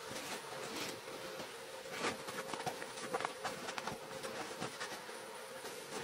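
Canvas backpack and gear bag being handled: fabric rustling with scattered small clicks from straps and buckles, over a faint steady hum.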